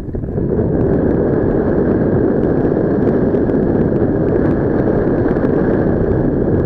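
Air rushing over the microphone in flight under a paraglider: a loud, steady wind noise, strongest in the low and middle range.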